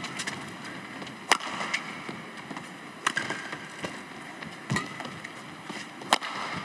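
Badminton rackets striking a shuttlecock in a rally: four sharp hits about a second and a half apart, the players trading shots.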